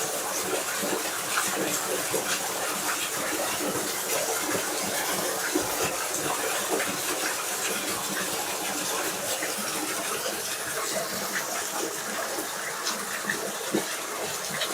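Small waterfall running steadily, a constant rush and splash of falling water.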